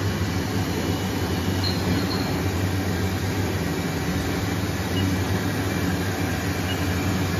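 Steady hum and rumble of a 1998 Haas VF-3 CNC vertical machining center running, a sound the owner judges free of spindle-bearing noise. A few faint short beeps come from its control keypad as keys are pressed.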